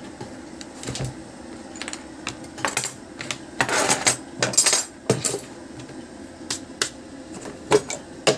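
Tools and small items being handled on a hard workbench: scattered clicks and knocks as things are picked up and set down, with a denser clatter of handling about halfway through.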